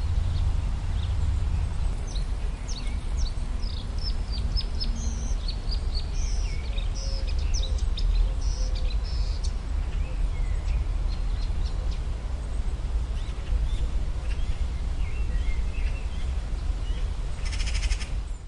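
Marsh warbler singing a rapid, varied song of short chirps and trills, densest in the first half and sparser later, over a steady low rumble of background noise. The recording cuts off abruptly at the end.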